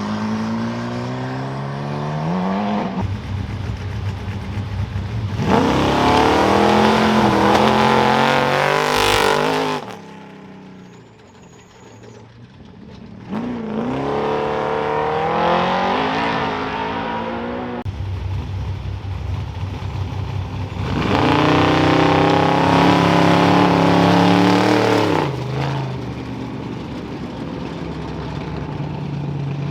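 Off-road race vehicles leaving the start line one after another, engines revving hard and climbing in pitch as they accelerate away. Two louder ones go past with a quick drop in pitch, and there is a short lull between them.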